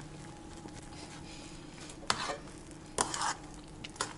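A spoon stirring and folding soft curd and whipped cream in an enamel bowl, with three sharp knocks of the spoon against the bowl about a second apart in the second half.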